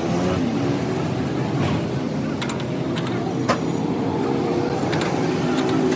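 Six-cylinder truck engine running steadily at idle, with a few sharp clicks or knocks over it.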